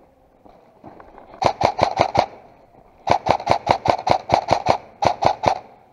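An airsoft rifle firing full-auto in three short bursts, about six or seven shots a second, with the longest burst in the middle.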